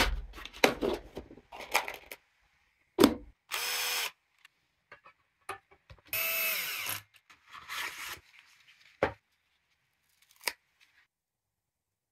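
A power drill run in three short bursts, the longest about a second, between clicks and knocks of hardware being handled in a plastic parts organizer.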